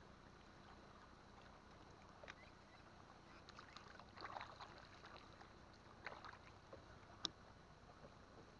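Near silence with faint water sloshing against a small boat's hull and a few light splashes, then one sharp knock about seven seconds in.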